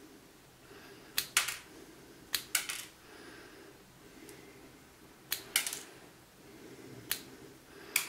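A multitool's plier-head wire cutter snipping through a thin electronic cable about four or five times. Each cut is a sharp snap, often with a second quick click as the jaws close or open.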